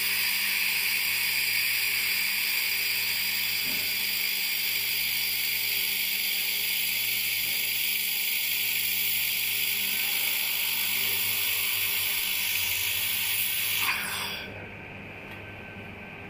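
Handheld laser welding gun running a seam on a steel square-tube corner joint: a steady hiss over a low hum, with the hiss cutting off about fourteen seconds in as the weld ends.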